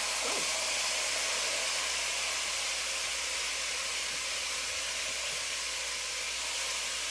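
Steady sizzle of a chuck roast searing in smoking-hot oil in a cast iron pot, just after the meat goes in.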